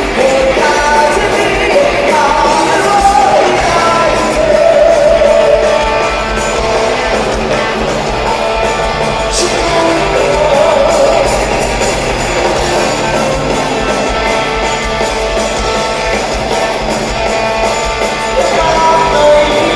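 Live rock band playing with a male lead singer, electric guitars, bass and drums.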